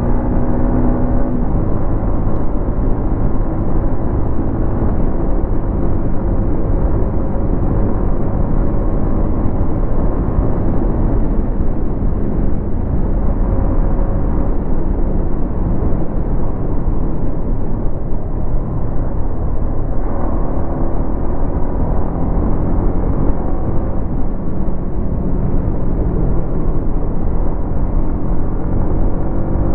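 Yamaha MT-15's 155 cc single-cylinder engine running through its stock exhaust while riding, the engine note climbing near the start and again near the end. Steady wind and road noise largely covers it in between.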